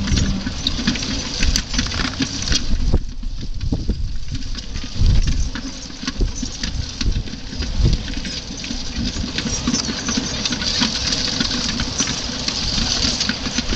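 Steady clatter and rattle of a horse-drawn harrow and its forecart being pulled over dry stubble by a pair of Suffolk Punch heavy horses. Many small metallic clicks run together, with irregular low thumps.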